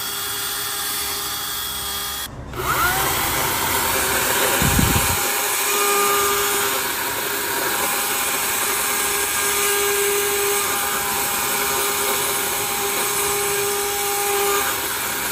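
DeWalt 60-volt battery chainsaw running, its chain cutting into a tree stump, steady throughout. The sound breaks off briefly about two seconds in, and there is a low thump about five seconds in.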